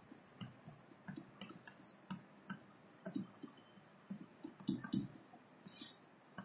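Chalk writing on a blackboard: faint, irregularly spaced taps and short scratches as the letters are written.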